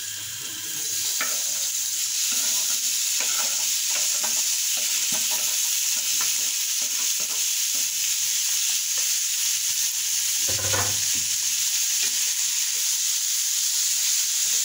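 Diced raw chicken sizzling in hot oil and garlic-ginger paste in a non-stick pan, the hiss swelling about a second in as the pieces go in, while they are stirred around with small scraping clicks. One louder knock comes about ten seconds in.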